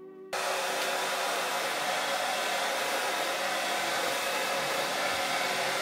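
Handheld hair dryer switched on about a third of a second in, then running steadily with an even rushing blow, aimed at the lace of a frontal wig.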